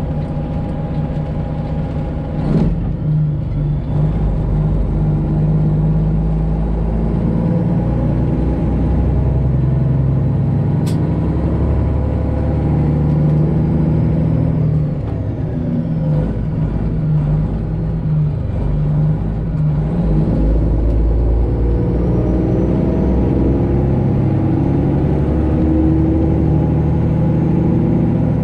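Semi truck's Detroit Diesel 12.7-litre engine running under way, its note dropping and climbing again several times as the truck moves through gears. A single sharp click about eleven seconds in.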